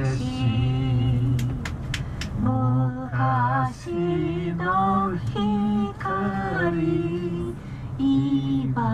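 A voice singing a slow, unaccompanied song in long held notes that step up and down in pitch. A few faint clicks come in about a second and a half in.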